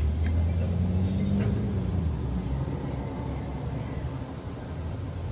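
A steady low rumble with a faint hum that swells and fades about a second in.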